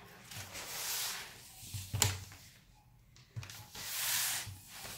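Stiff paper backing rustling and sliding as a roll of vinyl decal sheets is unrolled by hand on a tabletop, in two soft swells, with one short sharp tap about two seconds in.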